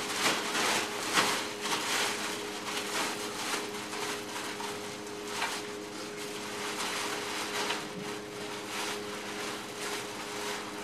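Cardboard and plastic packaging rustling and being handled in short irregular scrapes and crinkles, over a steady low hum.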